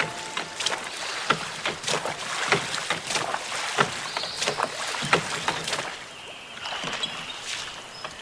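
Oars of a small wooden rowboat dipping and splashing in calm lake water as it is rowed, in irregular sharp strokes about once or twice a second, fainter in the last couple of seconds.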